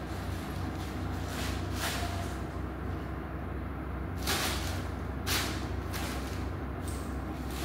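Short rustling swishes of plastic bag and tinsel being batted and rolled in by playing kittens, a few close together with the loudest past the middle, over a steady low hum.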